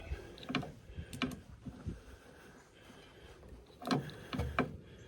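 Cutters clipping the end of a steel cotter pin: several small metal clicks of the tool, then a sharper snip just before four seconds in, followed by a low knock.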